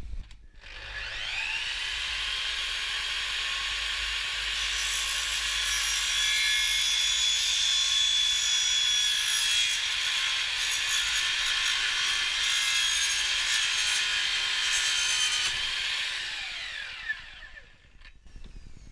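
Festool Kapex mitre saw spinning up, its blade cutting through a 4-inch plastic soil pipe, then winding down with a falling whine near the end.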